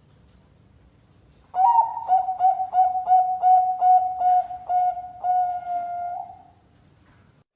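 Zebra dove (Bangkok perkutut) singing one coo phrase about one and a half seconds in: an opening note, then a run of short, evenly repeated coos at about three a second, ending on a longer held note.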